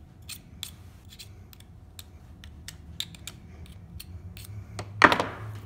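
Light, sharp clicks and taps from small encoder parts being handled on a workbench. About five seconds in comes a single louder, brief scraping rustle.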